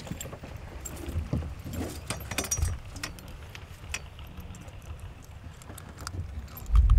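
Scattered light clicks and rattles of fishing tackle being handled, over a low rumble of wind on the microphone that grows much louder near the end.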